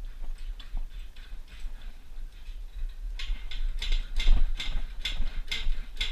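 Car jack being worked to lift the car, a regular run of sharp clicks with each stroke of the handle, faint at first and louder from about halfway through at roughly three clicks a second.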